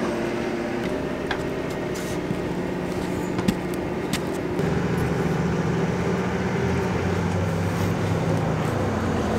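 An engine runs steadily as a low, even hum, which gets slightly louder about halfway through; a few faint clicks are heard over it.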